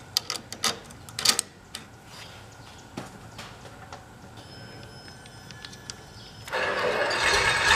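Light metallic clicks and taps as bolts and spacers are fitted by hand into an aircraft brake caliper, mostly in the first second and a half. About six and a half seconds in, a loud, steady engine noise starts and keeps running.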